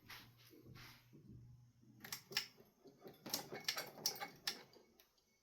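A string of sharp clicks and clacks from ceiling fan parts being handled, clustering about two seconds in, with a faint low hum underneath in the first second and a half.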